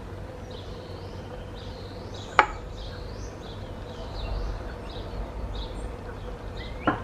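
A single sharp knock about two and a half seconds in, with a smaller one near the end, over a steady low hum and faint high chirping.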